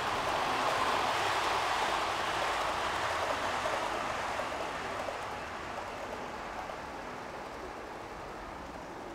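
OO gauge model train, a diesel locomotive hauling a rake of coaches, running on the layout's track: a steady rolling rumble of wheels on rail and the loco's motor, loudest about a second in and then slowly fading as the train moves away.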